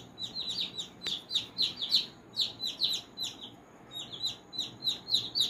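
Baby chicks peeping: a run of short, high chirps, each falling in pitch, a few every second, thinning out about halfway through before picking up again.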